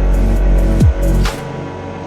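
Electronic background music with a heavy beat: a deep kick drum sweeping down in pitch under sustained synth notes, dropping to a quieter break in the second half.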